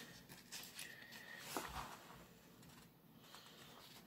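Faint handling of a comic book: soft paper rustling and small clicks as the comic is opened, with one slightly sharper tap about one and a half seconds in.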